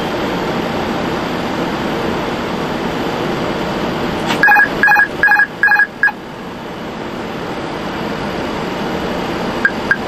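Steady air and engine noise on an Airbus A330 flight deck on final approach. About four and a half seconds in, a quick run of about five short electronic beeps sounds and stops.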